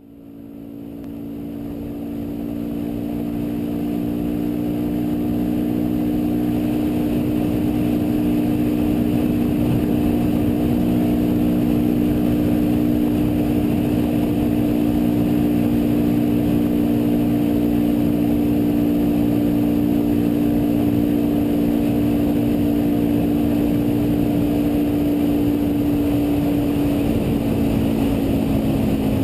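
Motorcycle engine running steadily at highway cruising speed, a constant drone that fades in over the first few seconds. Its pitch drops slightly near the end as the bike eases off.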